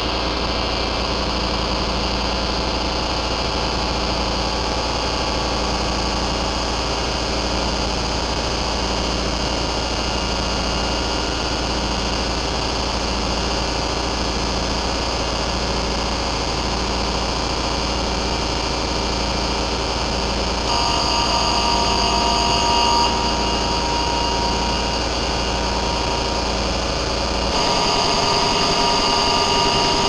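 Drone/noise music from home-built DIY noise synthesizers run through a Boss GT-8 multi-effects unit. It is a dense, steady drone of held tones over hiss and a low rumble, with a slow pulsing figure underneath. A brighter layer of high tones cuts in for a couple of seconds about two-thirds of the way in, and again near the end.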